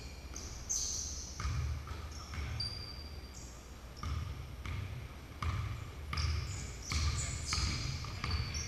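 Basketball bouncing on a hardwood gym floor, a thump about every half second to a second, with sneakers squeaking briefly on the boards in between, in a large echoing gym.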